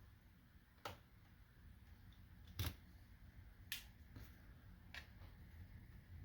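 Faint, scattered clicks and taps of a laptop being handled during disassembly, about five in all, the loudest about two and a half seconds in.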